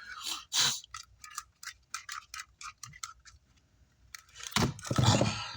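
Small objects being handled on a workbench: a run of light, irregular clicks and ticks, roughly four a second, then a louder scraping, handling noise lasting about a second near the end.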